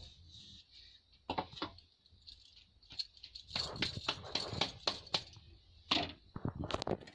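Kitchen handling sounds: light knocks, taps and rustles as a rolled roti is lifted off the wooden rolling board and laid on the iron tava, with a quick run of taps in the middle and a few more knocks near the end.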